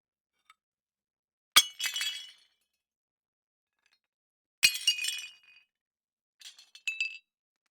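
Plates smashing: two sharp crashes about three seconds apart, each followed by shards tinkling and scattering for about a second, then a few lighter clinks of pieces near the end.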